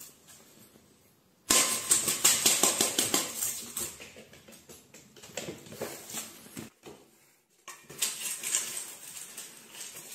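Dry cat food rattling and clinking in a stainless-steel bowl: a sudden bout of rapid clatter about a second and a half in that dies away over a few seconds, then a second bout near the end.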